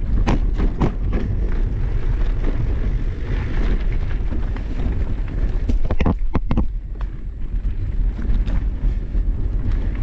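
Mountain bike riding over a rocky dirt trail: a steady low rumble of wind on the microphone and tyre noise, with sharp knocks and rattles from the bike just after the start and again about six seconds in.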